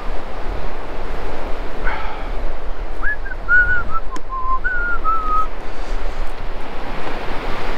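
Steady rushing noise of wind and surf on an open beach. About halfway through, someone whistles a short phrase of half a dozen clear notes, some held and some sliding.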